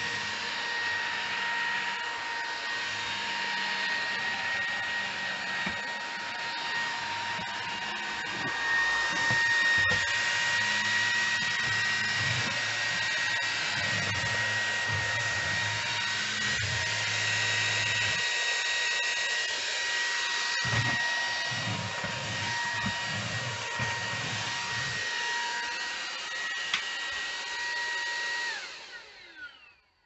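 Hoover H-500 cordless stick vacuum running with a steady high whine, its powered floor head pushed over carpet and then a wooden floor. Near the end the motor is switched off and the whine winds down and falls away.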